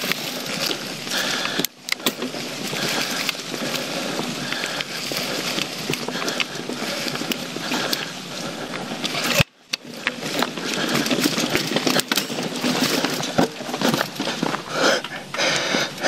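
YT Jeffsy mountain bike ridden down a rough forest trail: tyres rolling over dirt, leaves and rock, with a steady rush of noise and frequent small rattles and knocks from the bike over the bumps. The noise drops out for a moment twice, about two seconds in and again about halfway through.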